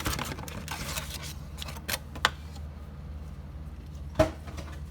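Cardboard trading-card box and foil packs being handled as the box is opened: scattered light clicks and rustles, with one sharp knock about four seconds in, over a low steady hum.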